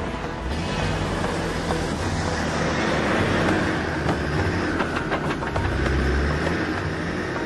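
Off-road vehicle driving across rough desert ground: the engine runs steadily with scattered knocks and rattles from the body.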